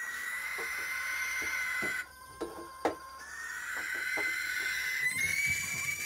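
Barn owl giving a long, raspy hiss-screech, held about two seconds, then, after a short break with a few light knocks, a second, longer one.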